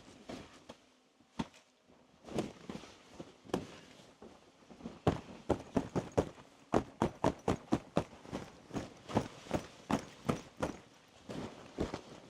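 Footsteps in deep snow: a few scattered steps, then from about halfway a steady walking pace of about two steps a second.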